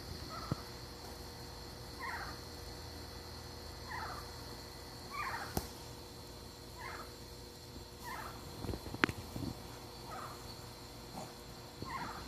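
An unseen animal in a tree, which the uploader takes to be an owl, gives short, squeaky, downward-sliding calls, repeated about every one and a half to two seconds. Two sharp clicks stand out, around the middle and about three quarters of the way through.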